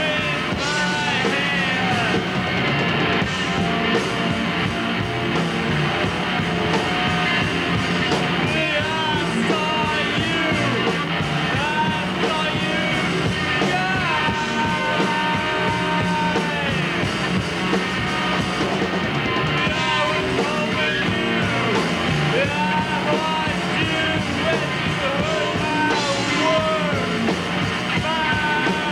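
Punk rock band playing live, a male singer shouting and singing into a handheld microphone over the band. The top end sounds dull and muffled.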